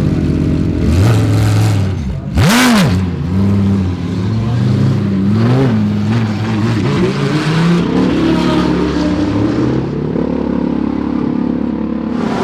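GT3 race cars at racing speed. One passes very close about two and a half seconds in with a quick rise and fall in pitch, then several engines accelerate, their notes climbing and dropping back at each upshift.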